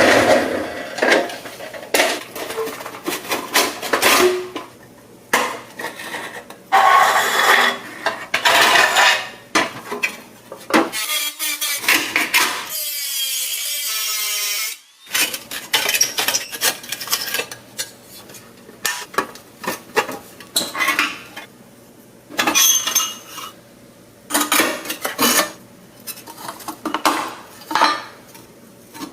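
Hand tools working on a metal toy: parts clinking and clattering, with scraping and rubbing in irregular bursts. A short whirring with a wavering pitch comes about halfway through.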